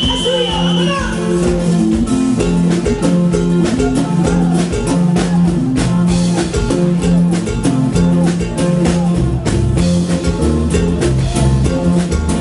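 A live norteño group playing an instrumental passage of a huapango on accordion, acoustic guitar and drum kit, in a steady rhythm.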